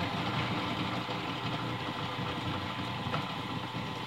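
Cheap drill press running, its motor giving a steady hum with a steady whine on top.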